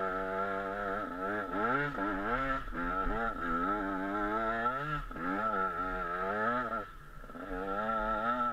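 KTM 125 SX two-stroke motocross bike engine revving hard and dropping back over and over as the rider works the throttle around the track, easing off briefly about seven seconds in.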